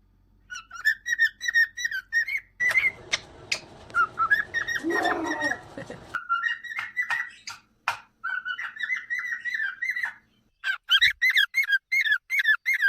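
Cockatiel whistling and chirping in fast runs of short, repeated notes, several a second, with a stretch of background noise under it in the middle.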